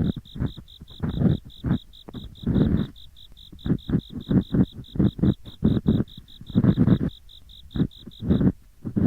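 Ear picks scraping in both ears at once, a coarse "gori-gori" scraping in irregular strokes, some short and some drawn out. Behind it, autumn insects chirp in a steady pulse of about four a second, which stops shortly before the end.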